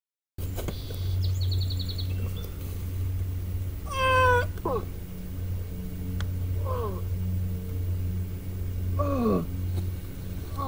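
A series of five short animal calls, each sliding down in pitch, spaced a couple of seconds apart, over a low steady hum. A brief high, rapid trill comes near the start.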